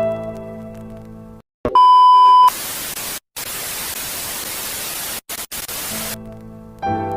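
A TV 'no signal' glitch sound effect: a click and a loud, steady high beep tone lasting under a second, cut straight into about four seconds of white-noise static hiss that drops out briefly twice. A fading electric-piano chord comes before it, and the piano music returns near the end.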